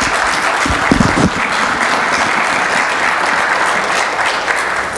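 Audience applauding steadily in a hall, with a few low thumps about a second in; the applause cuts off abruptly at the end.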